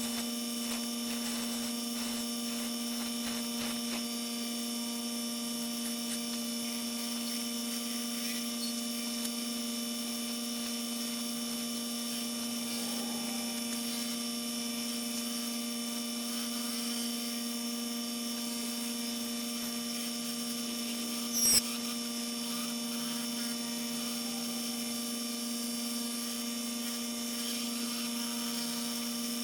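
A steady electrical hum that holds the same pitch throughout, with one brief sharp scraping sound about two-thirds of the way through.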